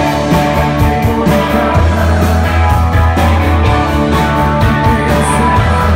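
Rock band playing live at a sound check, loud, with a steady drum beat under bass and other instruments.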